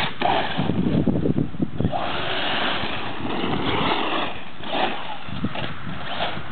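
Electric RC truggy with a brushless motor driving hard across grass, its motor and drivetrain whirring, mixed with wind buffeting the microphone. There are rough knocks in the first couple of seconds, then a stretch of louder rushing noise.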